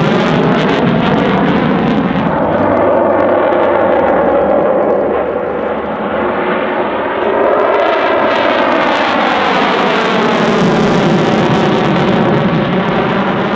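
F-16C Fighting Falcon's Pratt & Whitney F100 turbofan: loud, steady jet noise during a display pass. A whooshing sweep rises and falls in pitch as the jet moves past, about midway and again later.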